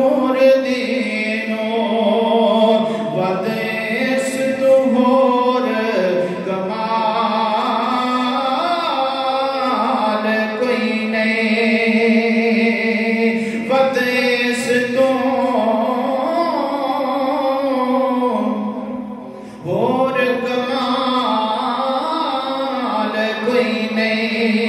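A man singing a Punjabi devotional kalam in long, held, ornamented notes, with a brief pause about 19 seconds in.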